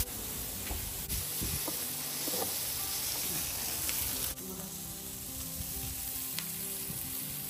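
Food sizzling over a wood fire, asparagus and carrots frying in pans beside barbecue meat on the grill: a steady hiss that drops a little about four seconds in.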